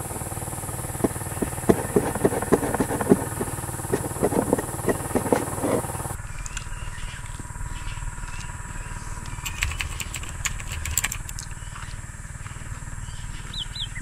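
Large knife sawing down through a toasted-bread sandwich, a rapid run of crisp crunches for about six seconds. Later come a few crunching bites of the sandwich, all over a steady low rumble.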